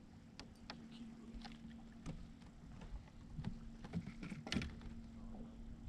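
Scattered light clicks and knocks in a fishing boat, with one louder knock about two-thirds of the way through, over a steady low hum.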